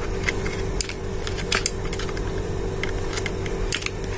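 Irregular small plastic clicks and taps as the glass panel of an emergency break-glass door release is pushed back into its housing by hand, resetting the release. A steady low hum lies underneath.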